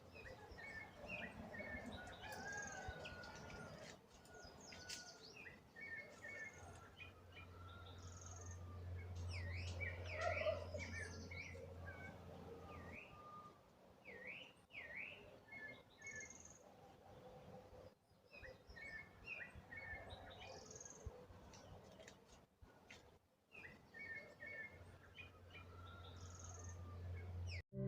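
Several birds chirping and calling, faint, in short chirps, trills and quick whistled glides. A low steady hum comes in twice, for a few seconds around the middle and again near the end.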